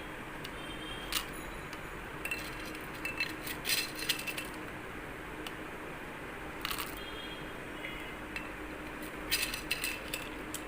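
A spoon clinking against a glass while mixing: scattered light clinks, with quick runs of them about three to four seconds in and again near the end.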